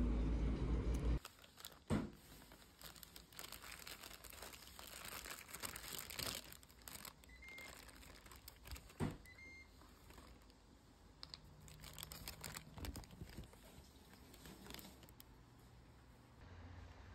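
Low vehicle rumble that cuts off about a second in, then quiet handling noises: crinkling and rustling with scattered small clicks and taps.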